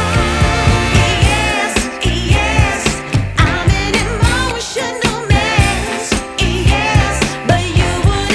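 Background music: a song with a sung vocal over a steady beat and bass, in a soul or pop style.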